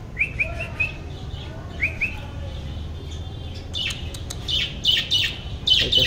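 Budgerigars chirping: a quick run of short rising chirps at the start, two more about two seconds in, then louder, busier chattering from about four seconds on.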